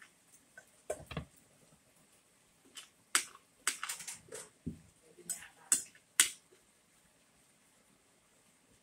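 Metal spoon and fork clinking and scraping against a plate in a run of short, sharp clicks, the loudest about six seconds in. A duller knock comes about a second in.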